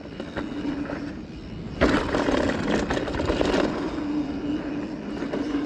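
Mountain bike rolling fast down a dirt singletrack: tyre noise on the dirt with the bike and camera mount rattling, over a steady faint hum. About two seconds in, the rattling turns louder and harsher, a clattering stretch of almost two seconds, then eases back.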